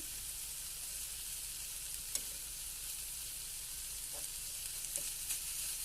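Scallops searing in hot garlic butter in a frying pan on high heat, with steady sizzling. A few faint clicks, the clearest about two seconds in.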